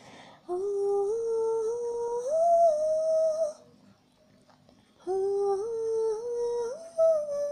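A woman's voice humming a wordless melody in two phrases, each a few held notes stepping upward in pitch, with a short pause between them.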